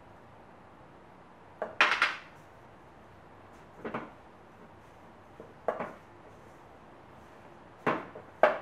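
Clinks and knocks against a stainless steel mixing bowl as sugar is tipped in from a small bowl and the batter is stirred with a utensil: about five separate sharp knocks at irregular intervals, the loudest about two seconds in and near the end.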